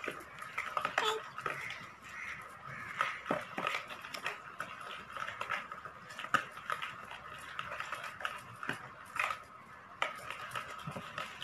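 A utensil stirring grated chocolate into a thick, creamy cake mixture in a plastic mixing bowl: irregular scraping and soft knocks against the bowl.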